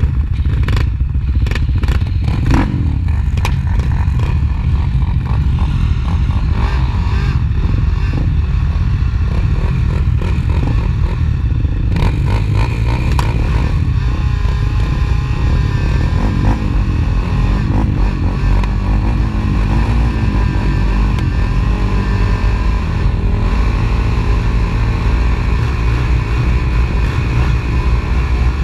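Racing ATV engines running hard and revving up and down in a motocross race, with a run of sharp clattering knocks in the first few seconds.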